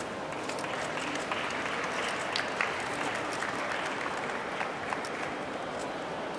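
An audience applauding, a steady patter of many hands clapping, with a couple of sharper, louder claps about two and a half seconds in.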